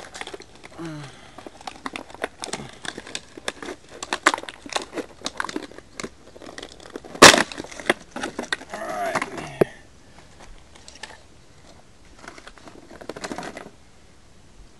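Crinkling and rustling of plastic packaging being handled, with scattered clicks and taps of small parts. There is one loud sharp click about seven seconds in. The rustling mostly stops after about ten seconds.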